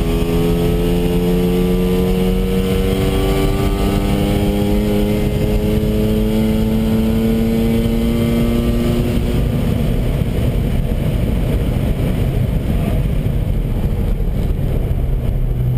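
In-cabin sound of a Mazda RX-7 FD3S's twin-turbo 13B rotary engine pulling hard under throttle, its note rising steadily for about nine seconds. It then fades into a loud rush of wind and road noise.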